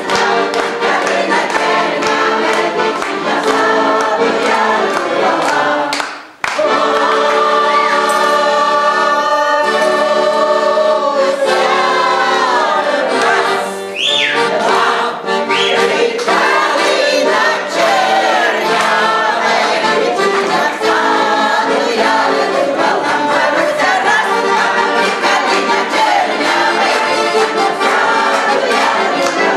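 A choir singing in sustained chords, with one brief break about six seconds in.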